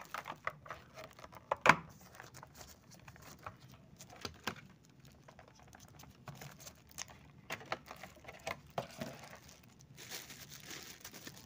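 Plastic packaging crinkling and rustling as it is handled and pulled open, a run of irregular short crackles with one sharper crackle about two seconds in.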